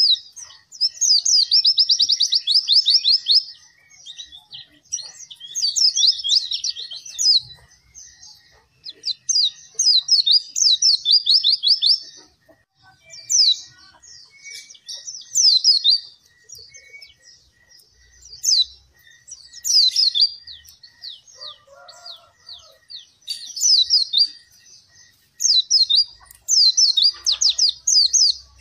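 White-eye (pleci) singing in repeated bursts of fast, high, trilled phrases, each a second or a few seconds long with short pauses between. This is the constant 'gacor' song used to get other pleci singing.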